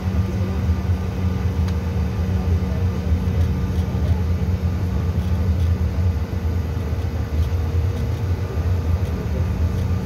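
Cabin noise inside a Bombardier CRJ900 moving slowly on the ground: a steady low rumble from its rear-mounted General Electric CF34 turbofans and the airframe, with a faint steady hum above it, neither rising nor falling.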